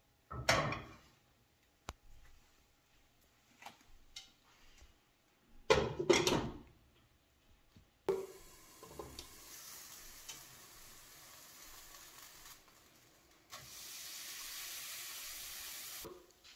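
Two clattering knocks of cookware being handled, then crepe batter sizzling in a hot nonstick frying pan, a steady hiss that grows louder for the last few seconds before it stops.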